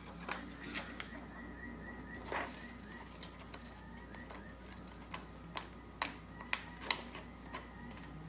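Scattered light clicks and taps of a clear plastic face-shield sheet and a 3D-printed plastic frame being handled while their holes and pins are lined up, over a faint steady high tone.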